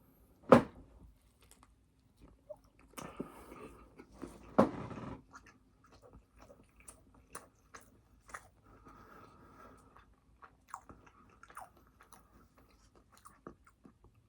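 Biting into a hamburger and chewing close to the microphone, with soft wet mouth clicks. A sharp louder bump comes about half a second in and another about four and a half seconds in.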